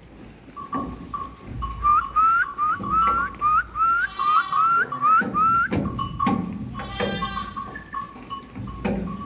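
Akkaraman sheep bleating a few times, loudest about four and seven seconds in. Over the first half comes a string of short rising whistles, about three a second.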